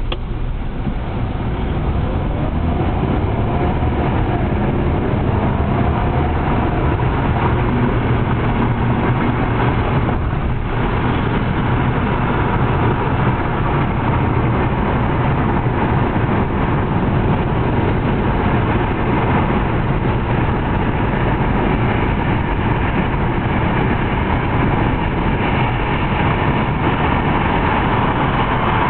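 Car engine and road noise heard from inside the cabin as the car pulls away from a stop and speeds up, with the engine pitch rising for the first several seconds, then a steady drone of tyres and engine at highway speed.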